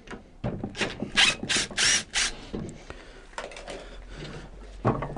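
Cordless drill driver running in several short bursts about a second in, backing a screw out of the wooden sash, followed by a single knock near the end.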